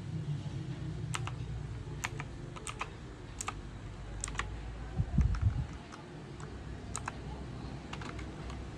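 Mechanical keyboard with clicky green switches, single keys pressed one at a time, each giving a sharp double click about once a second. A few low thumps come about five seconds in.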